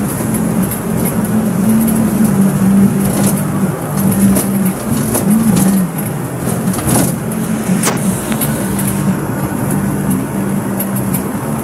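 Road and engine noise inside a moving car's cabin on a highway: a steady rush of tyres and wind under a low engine drone that shifts slightly in pitch.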